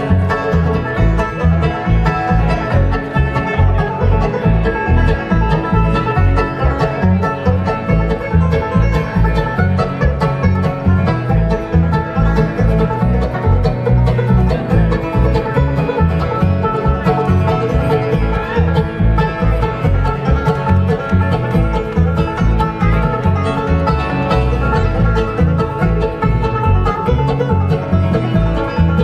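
Live bluegrass band playing an instrumental break between verses: picked acoustic guitar and string-band instruments over an upright bass keeping a steady beat.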